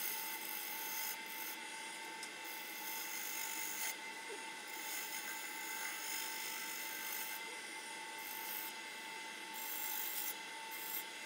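Wood lathe spinning a red cedar vase blank while a hand-held turning tool cuts along its surface: a continuous scraping hiss over a steady whine.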